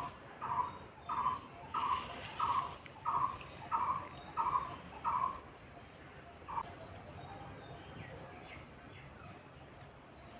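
A bird calling a short, hollow note over and over, about one and a half times a second, nine or so in a row, then once more after a pause.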